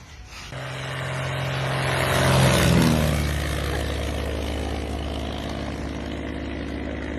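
An aircraft passing low and close by. Its engine drone swells to a peak about two and a half seconds in, then drops in pitch as it goes past and carries on as a steady lower hum.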